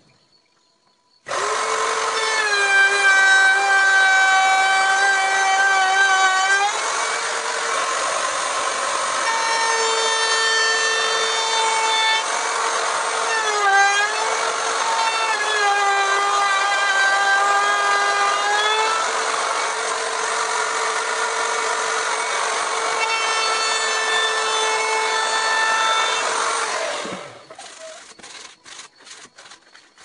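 Electric woodworking power tool running with a loud, steady high whine while cutting wood, its pitch dipping slightly under load. It is switched off near the end and winds down with a falling pitch, followed by a few clicks.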